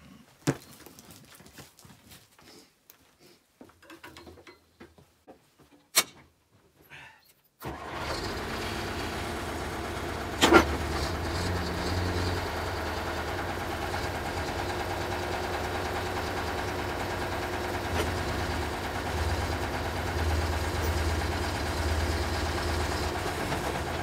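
A few small knocks, then about eight seconds in a front loader's engine starts abruptly and settles into a steady idle with a low throb, with one loud clank a couple of seconds after it starts.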